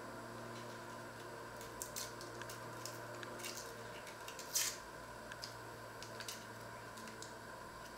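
Dry onion skins crackling and tearing as an onion is peeled with a small paring knife, in short, scattered crisp snaps, the loudest about four and a half seconds in. A steady low hum runs underneath.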